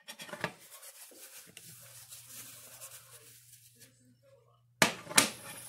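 Cookware being handled on a glass-ceramic stovetop: light clicks and knocks, then two sharp clanks about half a second apart near the end, over a faint low steady hum.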